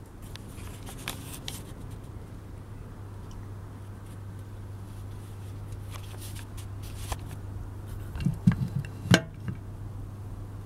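Clockwork spring motor of a 1930 Mengel Playthings Miss America toy boat running with a steady low hum, with a few sharp clicks and knocks of handling about eight to nine seconds in.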